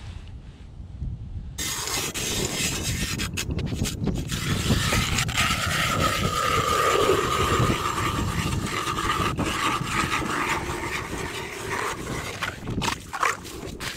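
Hand ice auger being cranked through thick lake ice, its blades scraping and grinding steadily; it starts about a second and a half in and gives way to a few separate scrapes near the end.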